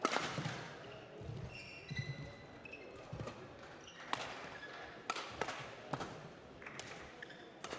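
Badminton rally: sharp cracks of rackets hitting the shuttlecock, several in quick succession in the second half, with short squeaks of court shoes and thuds of footsteps on the court floor.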